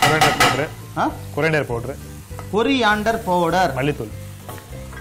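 Onion-tomato masala with spice powder sizzling in hot oil in a pan while it is stirred, with scraping strokes near the start.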